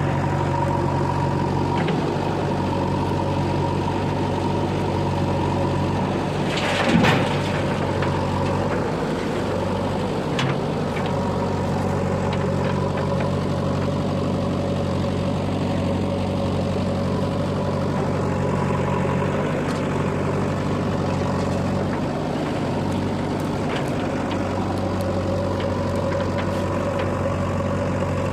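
Heavy diesel machinery engine running steadily at a constant speed, with a brief loud burst of noise about seven seconds in.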